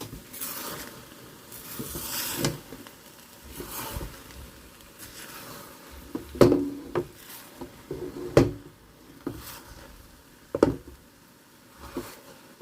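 A spoon stirring sweet rice in a cooking pot: a few scraping strokes through the rice, then several sharp knocks of the spoon against the pot, one short metallic ring among them.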